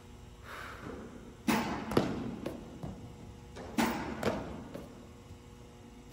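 Baseballs from a pitching machine smacking into a baseball glove: two rounds of sharp knocks, about two seconds apart, each a loud smack followed by quieter ones.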